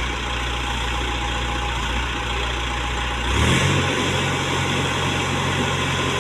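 Case 770 NXE backhoe loader's diesel engine running steadily at idle, then picking up revs about three seconds in and holding at the higher speed.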